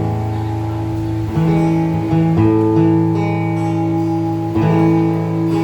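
Guitar playing sustained chords, changing chord several times.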